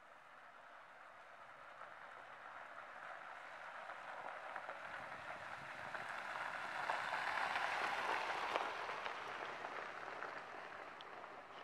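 A Jeep Wrangler JK driving past on a gravel road: its tyres crunch over the gravel, growing louder as it approaches, loudest about seven to eight seconds in, then fading as it goes by.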